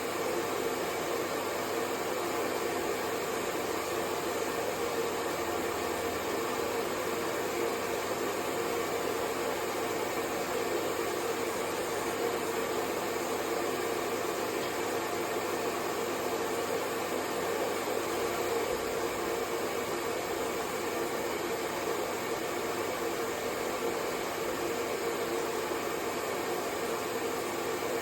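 Hair dryer running steadily on one setting: a constant rush of air with a faint motor hum, unchanging throughout.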